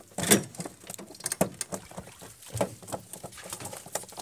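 Irregular light knocks and taps, about a dozen, the loudest just after the start, from handling gear and moving about on a small aluminium fishing boat.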